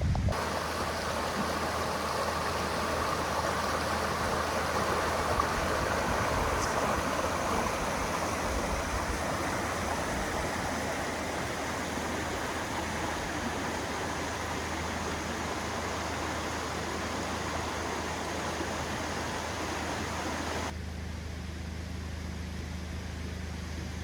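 Flowing stream water rushing steadily. About 21 seconds in it cuts off abruptly, and a quieter steady low hum takes over.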